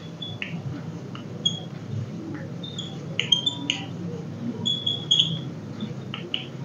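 Chalk writing on a blackboard: short, high-pitched chalk squeaks and scratches, over and over as the letters are formed.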